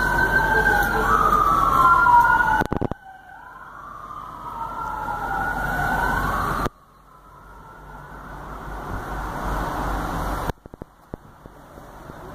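A wailing emergency-vehicle siren, slowly sweeping up and down in pitch with two wails crossing each other. It cuts off suddenly twice, about three seconds and about six and a half seconds in. After that a steady noise swells, then gives way to a few faint clicks near the end.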